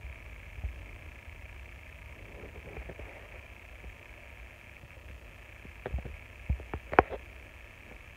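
Handling noise: a few light clicks and knocks, one just under a second in and a cluster of them around six to seven seconds in, over a faint steady hiss.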